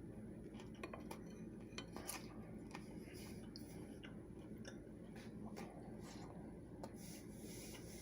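Faint, irregular clicks and light clinks of a fork against a dish.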